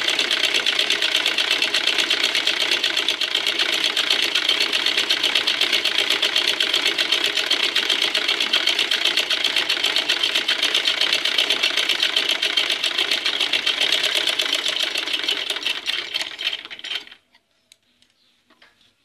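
Domestic sewing machine stitching a straight seam at a steady speed: a rapid, even run of needle clicks that slows and stops about 17 seconds in.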